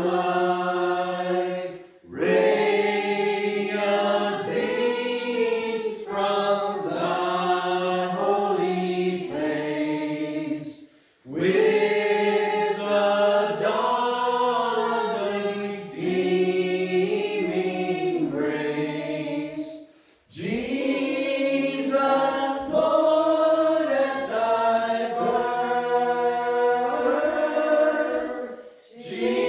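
Small mixed group of men's, women's and children's voices singing a Christmas carol without accompaniment, in long phrases with brief breaks for breath between them.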